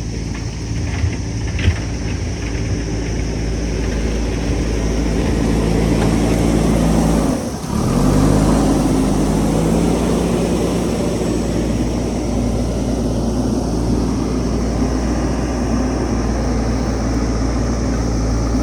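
Diesel engine of a JCB backhoe loader running under load while it digs, with a few knocks near the start. About seven seconds in the sound drops out briefly, then the engine revs back up and runs on steadily.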